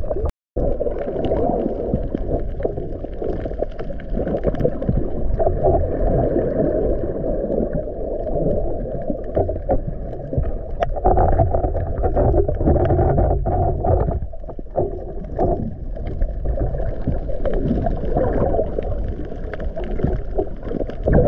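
Muffled underwater noise picked up by a camera in a waterproof housing: low rumbling and swishing water movement with scattered faint clicks. It cuts out to silence for a moment just after the start.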